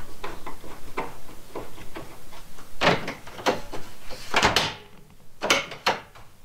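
Clicks and knocks of an RV refrigerator door and its hinge being worked with a screwdriver while the door is reversed: a run of small clicks, then several sharper, louder knocks over the second half.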